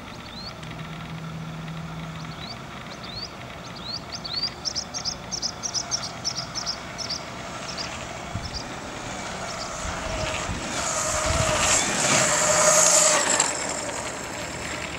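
Electric-powered waveboard passing close by on asphalt: a motor whine with wheel and road noise swells from about ten seconds in, is loudest just before the end, then falls away.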